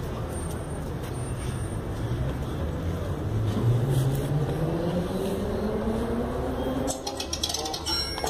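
A motor vehicle's engine pulling away, its pitch rising steadily over about four seconds against street noise. Near the end a different, higher sound cuts in.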